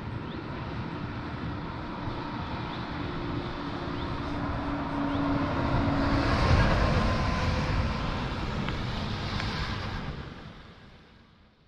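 Scania Citywide BEV battery-electric bus driving past: tyre and drive noise with a steady hum, growing louder to a peak about six seconds in, then falling away as it leaves, and fading out near the end.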